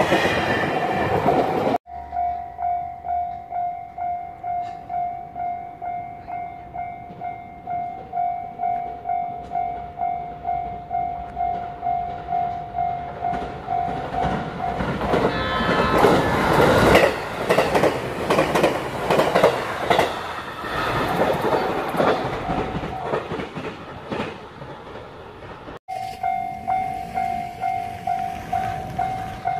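Japanese level-crossing warning bell ringing in a steady pulse about twice a second, with a JR Kyushu 787 series electric train passing close by midway, a loud rush and clatter of wheels on rail. At the very start an 817 series electric train is running past, and the bell is heard again near the end.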